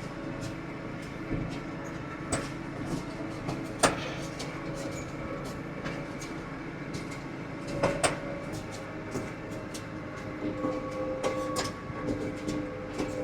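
Tractor running steadily while pulling a hay rake across the field, with a few sharp clanks and rattles from the machinery, the loudest about four and eight seconds in.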